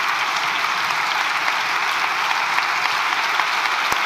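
A chamber full of parliamentary deputies applauding, many standing, with steady, dense clapping from many hands.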